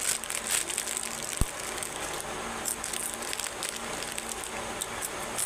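Plastic snack packet crinkling and crackling as it is handled and torn open, in many short, sharp crackles, with a brief low thump about a second and a half in.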